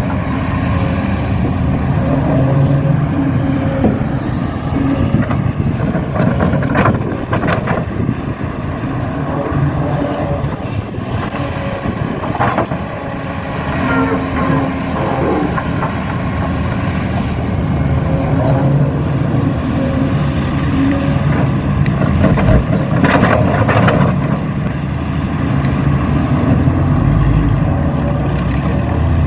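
Radio-controlled model construction vehicles working. The sound is a steady truck-engine hum with a faint high whine that rises and falls, and a few short knocks or scrapes at irregular moments.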